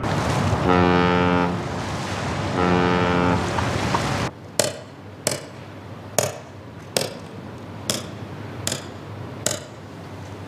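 A ship's horn sounds twice, each blast about a second long, over a steady wash of river and city noise. About four seconds in this cuts off suddenly. It gives way to seven sharp single clicks of a laptop keyboard's keys being pressed, roughly one every 0.8 s, as someone steps through a BIOS setup menu.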